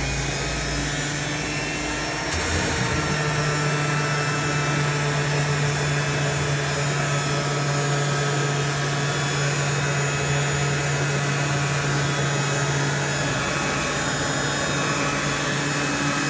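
Electric power sander running steadily against a metal go-kart frame, its sound shifting slightly about two seconds in and then holding steady.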